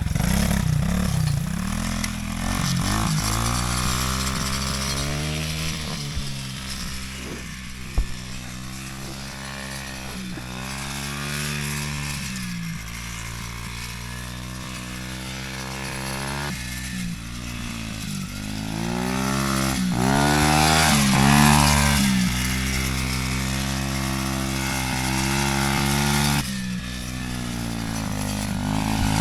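Small off-road vehicle engine running and revving up and down over and over as it rides around, with a sharp knock about eight seconds in.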